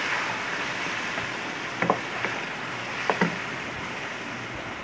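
Hot oil sizzling in a kadhai of fried onions as mashed bottle gourd is stirred in, with a spatula knocking against the pan a few times about two and three seconds in.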